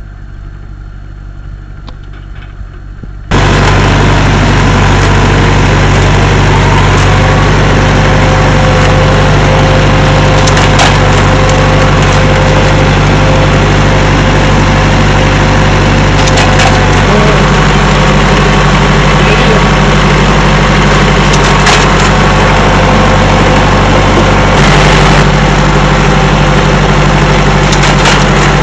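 Tractor engine running steadily while a tractor-mounted vine trellising machine works along the row, a loud, even mechanical noise with a few faint clicks. It jumps suddenly much louder about three seconds in.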